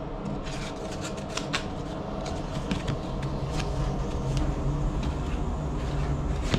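Lift car travelling down between floors: a steady low hum with scattered light clicks and rustles.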